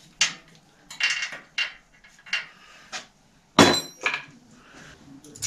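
Sharp metallic clinks and knocks of a steel wrench working the axle nuts of a bicycle's rear hub as the wheel is tightened into the frame: about eight irregular strikes, the loudest about three and a half seconds in.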